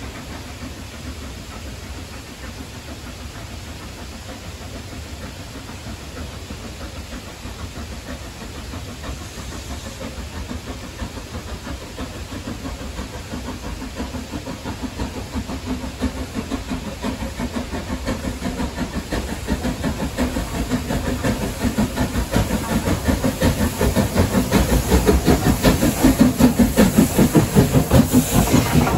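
Southern Railway Schools class No. 926, a three-cylinder 4-4-0 steam locomotive, working a train with rhythmic exhaust beats that grow steadily louder as it approaches, loudest near the end as it draws alongside with a hiss of steam.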